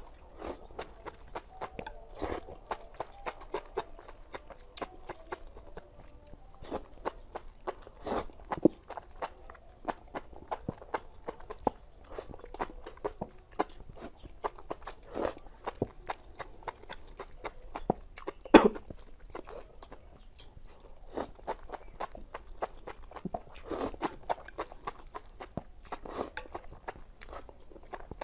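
Close-up mouth sounds of a person eating: steady chewing with many small crunches and clicks, and a few louder wet smacks spread through.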